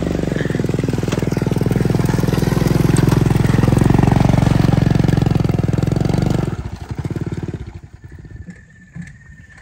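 Honda motor scooter's small engine running close by as the scooter pulls away, its sound dropping off sharply about six and a half seconds in.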